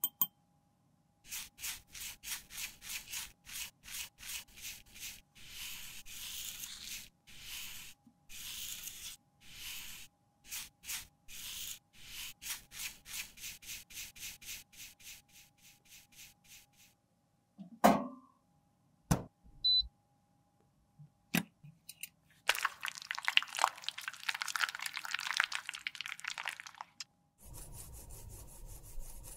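Close-up handling sounds of makeup being reworked with tools. First comes a long run of rubbing or scraping strokes, about two to three a second. Then a few sharp knocks and clicks, and near the end a dense stretch of rough scratching.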